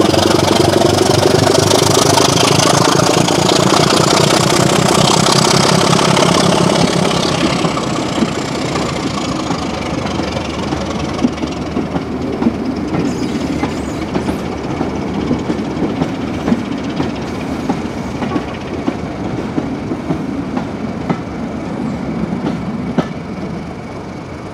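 Heritage diesel locomotive running under power with a train, its engine note and a high whine climbing and then falling away. The sound then slowly fades while the train clicks over the rail joints.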